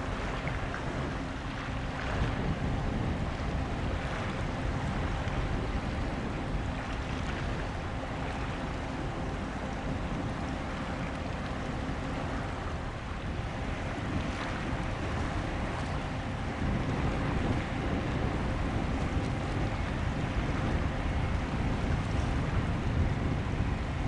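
Wind buffeting the microphone over choppy sea water, with a faint steady hum beneath it; the wind grows a little stronger in the second half.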